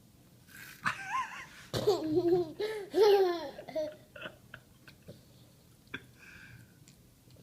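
A young child laughing and squealing in a high, bending voice for about three seconds, followed by a few soft mouth clicks.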